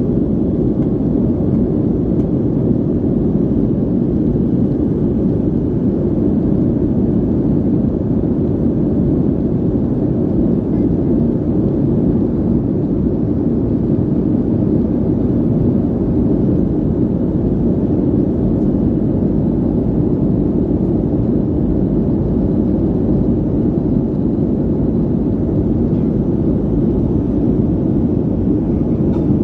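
Steady cabin roar inside a Boeing 737-300 in the climb after takeoff: the CFM56-3 engines and rushing airflow heard from a window seat over the wing, a low, even rumble.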